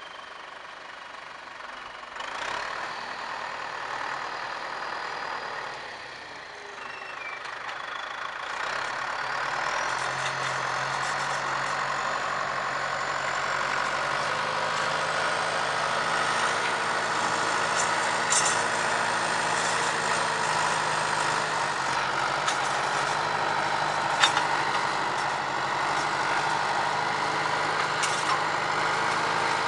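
John Deere tractor's diesel engine working steadily under load while pulling a disc implement through the ground, growing louder as it comes closer. Two sharp knocks stand out in the second half.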